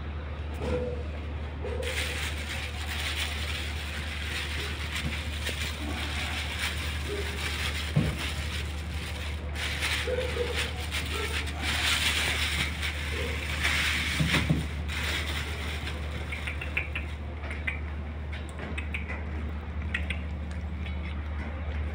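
Puppies chewing and tearing at raw meat in a steel dish, with wet smacking and the dish knocking and rattling now and then, over a steady low hum.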